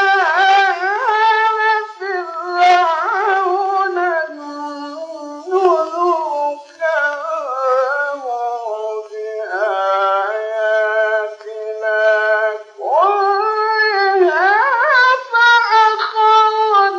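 Solo male voice in melodic Quran recitation in maqam Bayat, high in its range. Long held notes alternate with quick wavering ornamental turns, broken by brief pauses for breath.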